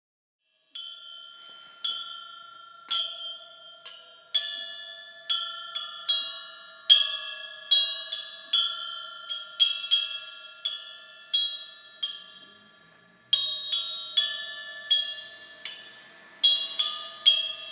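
Background music of bell-like struck notes ringing out one after another, about one a second and quickening near the end, over a steady low held tone.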